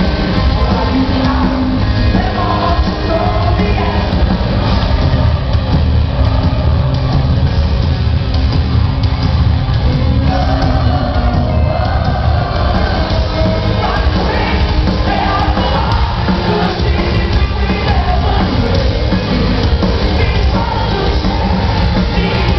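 A live rock band playing loud and without a break: electric guitars, bass and drums with a lead vocal, heard from the crowd in a large hall.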